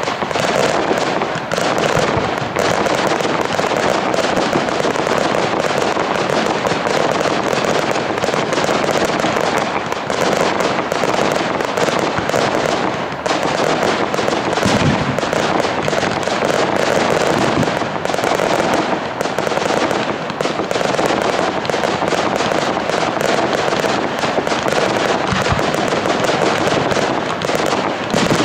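Fireworks display: a dense, unbroken crackle of many small bursts, with a few deeper booms about halfway through and near the end.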